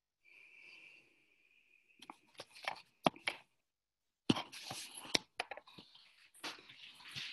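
Irregular rustling and crackling handling noise with several sharp clicks, after a faint steady high whine in the first second.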